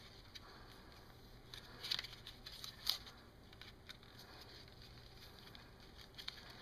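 Adhesive tape being handled and pressed down around a plastic power adapter's case: faint rustling with a couple of small sharp ticks about two and three seconds in, over a steady low hum.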